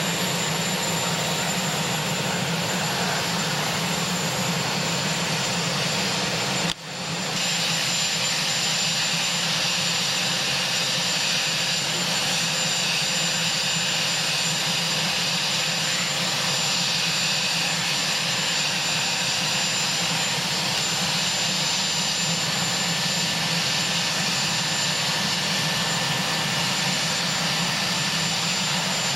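Marine One, a Sikorsky VH-3 Sea King helicopter, with its turbine engines running steadily on the ground: a continuous low drone under a steady high-pitched turbine whine. The sound briefly cuts out about seven seconds in.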